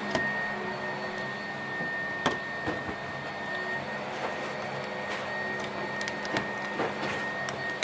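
Vacuum cleaner motor running steadily with a high whine, and a few light clicks over it.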